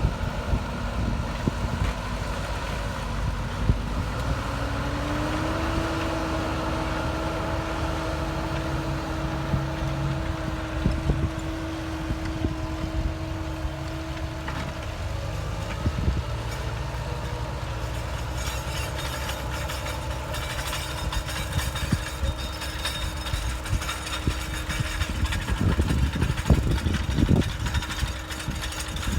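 Fendt Vario tractor engine running steadily under load while ploughing, a low rumble with a whine that rises in pitch about five seconds in and then holds. A crackling hiss joins in about two-thirds of the way through.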